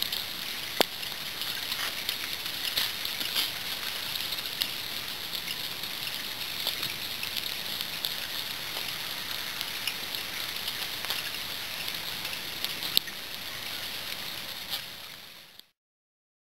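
Light rain pattering steadily on leaves and foliage, with scattered sharper drip taps. It cuts off suddenly near the end.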